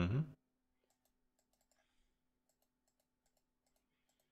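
Faint, irregular computer clicking, a few clicks a second, over a low steady hum.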